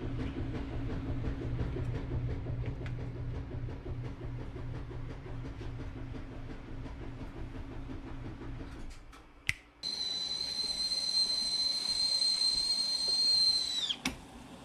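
Stovetop whistling kettle on an electric coil burner. First the low rumble of water heating, then a sharp click. From about ten seconds in comes a steady high whistle at the boil, which falls in pitch and cuts off near the end as the handle is gripped and the spout opens.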